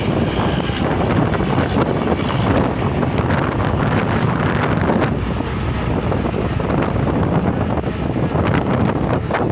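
Wind buffeting the microphone: a loud, steady, rumbling rush that wavers continually.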